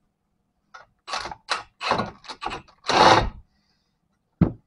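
Cordless impact wrench run in several short bursts, the last one the longest, spinning a lock nut up onto a suspension joint. A single sharp knock follows near the end.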